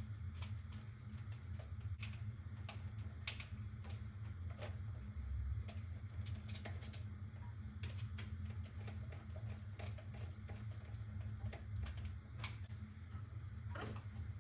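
Irregular light clicks and taps of hands and tools working wires and screw terminals inside an electrical breaker panel while a new 50 amp breaker is wired in, over a steady low hum.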